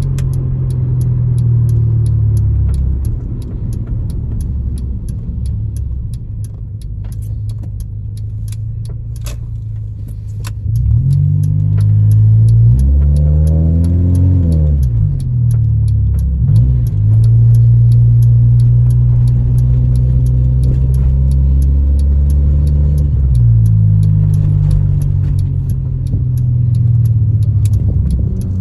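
Honda Civic EJ9's four-cylinder engine driving with its automatic gearbox, heard from inside the cabin, misfiring on all four cylinders (misfire codes 71–74). Mostly a steady low drone, with the engine pitch rising and falling a few times in the middle as the car accelerates and shifts. A faint regular ticking runs underneath.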